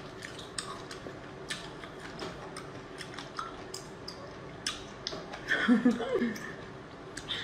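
Eating sounds: scattered sharp clicks and smacks of raw seafood being handled over a plate and chewed. About five and a half seconds in comes a short, louder voiced murmur.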